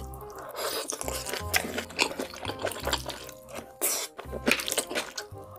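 Wet chewing, smacking and slurping of jjajangmyeon in black bean sauce, close to the microphone, over background music with a steady bass line.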